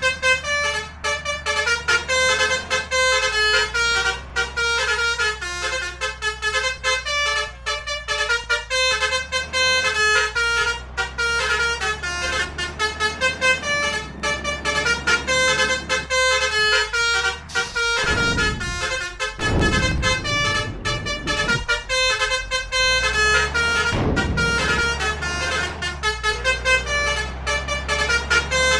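Basuri 'telolet' multi-tone air horns on heavy vehicles playing quick, repeated melodic tunes, note after note without a break, over the steady rumble of the engines. A vehicle swells up loudly about two-thirds of the way through and again a few seconds later.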